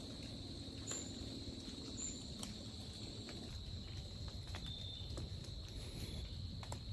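Crickets or similar insects droning steadily at a high pitch in autumn woodland, over a low rumble, with a few scattered faint clicks.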